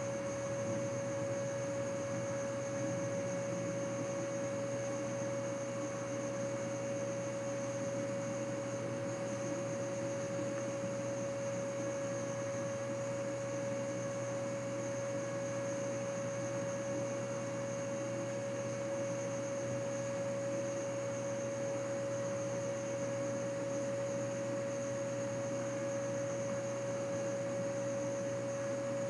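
A steady pitched hum: one constant mid-pitched tone with faint overtones and a thin high whine, unchanging throughout.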